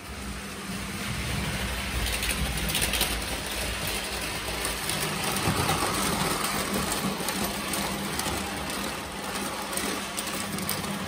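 Lionel electric toy steam locomotive and tender running past on three-rail track: a steady motor hum with the rolling rattle of the train. It builds over the first couple of seconds and then holds.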